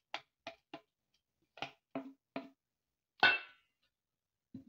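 Six light knocks as mashed banana is scraped and tapped off into a stainless steel mixing bowl, then a louder clank with a brief metallic ring about three seconds in as a wooden spatula is laid across the bowl. A soft low knock follows near the end.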